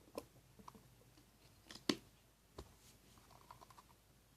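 Faint, scattered clicks and wet squishes of glue slime being stirred as borax solution is added and it starts to set, the loudest about two seconds in.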